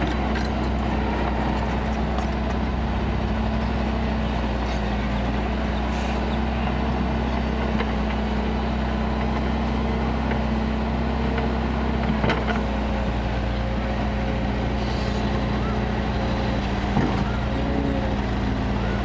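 Kobelco excavator's diesel engine running steadily, with two short knocks about twelve and seventeen seconds in.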